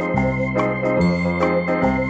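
Instrumental intro music: sustained keyboard chords over a bass line that steps to a new note about every second.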